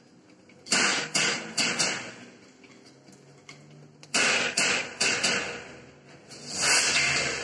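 Nunchucks swung and caught: three flurries of quick, sharp clacks and slaps as the sticks strike his hands and body, about a second in, about four seconds in, and near the end.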